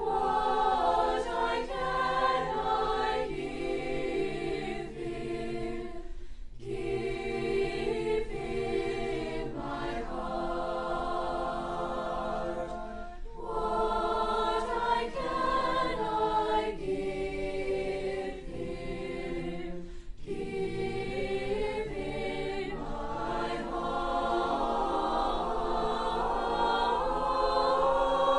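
A student choir singing in harmony, with short breaks between phrases about every seven seconds.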